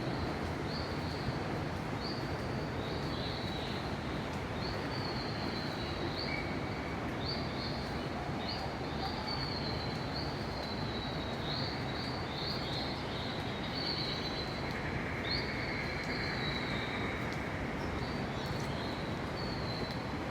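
Indoor rainforest ambience: a steady broad hiss with short high chirping calls repeating roughly once a second, typical of birds or insects in the greenhouse.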